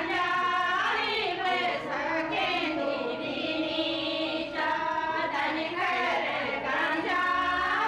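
Several women's voices singing together in a sustained, gliding melody, with light hand clapping.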